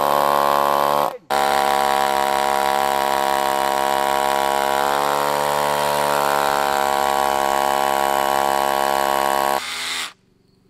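Cordless drill boring into a wooden fence post with a concrete (masonry) bit. The motor runs at a steady pitch, stops for a moment about a second in, then runs again for about eight seconds before easing off and cutting out near the end.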